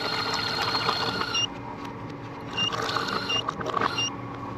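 Orange juice dispenser running and filling a cup, in two spells: one over the first second and a half and another from about two and a half to four seconds in.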